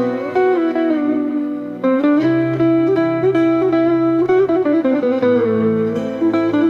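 Background music led by a guitar with a bass line.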